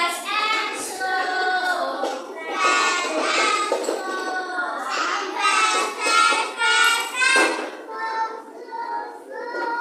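Young children singing together, in short phrases with some held notes.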